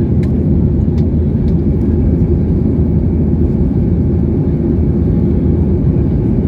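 Steady loud rumble of a Boeing 737-800's CFM56 jet engines and rushing air, as heard inside the cabin.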